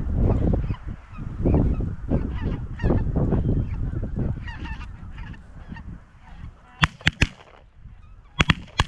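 A flock of geese honking and calling over wind noise. Shotgun blasts come in two quick volleys of about three shots each, one around seven seconds in and one near the end.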